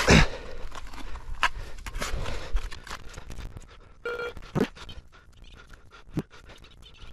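Spade digging into field soil: a series of separate scraping, crunching strokes, the heaviest right at the start. About four seconds in, a metal detector gives a short electronic tone.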